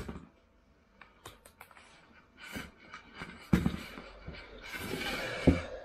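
Hands working stretch carpet onto a spray-glued plywood panel on a cardboard-covered floor. Scattered taps and rustles, two dull thumps about three and a half and five and a half seconds in, and a rough rubbing sound just before the second thump.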